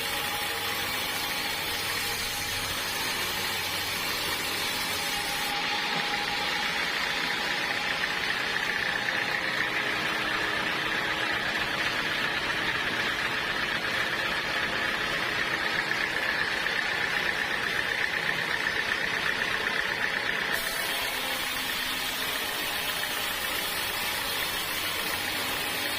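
Sawmill machinery running steadily, with a higher steady note that grows louder through the middle stretch.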